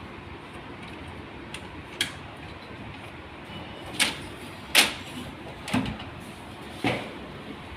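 Five sharp clicks and knocks at uneven intervals, the loudest about five seconds in, over a steady background hiss: a printer being handled during repair.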